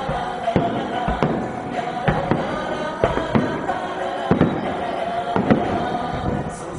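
Fireworks going off in a series of sharp bangs, about one or two a second, over music with singing from the show's loudspeakers.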